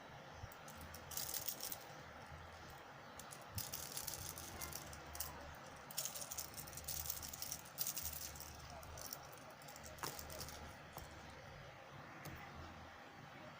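Fishing lures and their hard plastic packaging being handled, giving bursts of rattling and clicking with a few single clicks in between.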